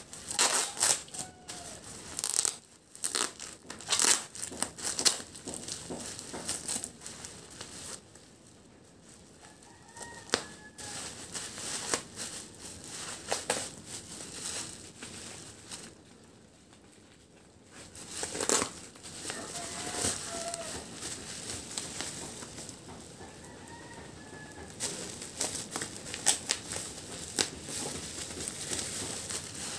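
Bubble-wrap and plastic parcel packaging crinkling and tearing as it is cut open with scissors, in bouts of rustling with two short lulls.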